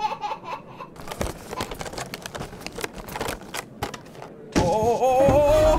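A brief giggle, then a scraping, clattering rustle of plastic toy figures being pulled up out of a sink drain. About four and a half seconds in, a wavering cartoon melody starts and is the loudest sound.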